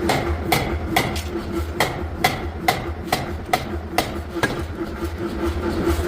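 Hammer blows on metal at a forge, about two ringing strikes a second, stopping about four and a half seconds in, over a steady low machine hum.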